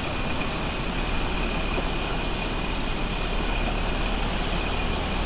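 The Alaknanda River in monsoon flood: a muddy torrent rushing over boulders, a steady, unbroken roar of fast water.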